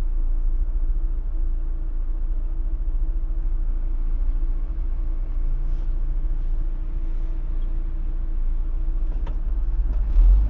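Fiat Fiorino van's engine idling, heard inside the cab as a steady low rumble with a constant hum, swelling briefly near the end.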